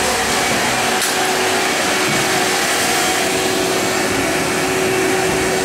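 Steady, loud whooshing hiss with a constant hum, like a fan or small motor running without change.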